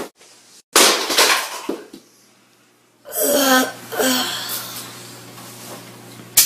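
Wordless vocal sounds from boys: a breathy outburst about a second in, then, after a moment of silence, a pitched voice sound lasting about a second. A steady low hum comes in with it, and a sharp click sounds near the end.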